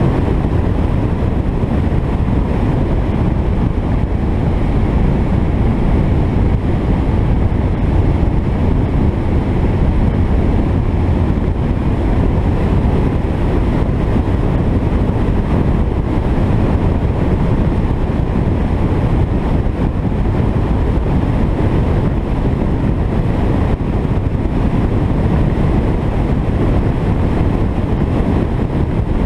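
Alfa Romeo 33 driving at a steady road speed: a constant low rumble of road and driving noise with wind buffeting the microphone, with no distinct engine note standing out.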